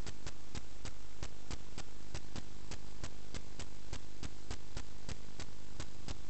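Sewer inspection camera rig running: a steady electrical hum with even, sharp ticking about four times a second.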